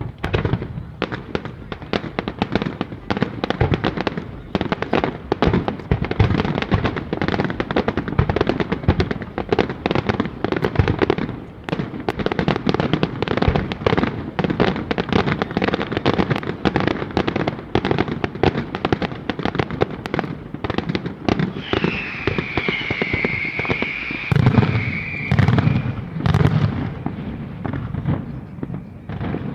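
Fireworks display: a rapid, continuous barrage of bangs and crackling bursts. About three-quarters of the way through, a high whistle sounds for a few seconds, falling slightly in pitch, and is followed by heavier booms.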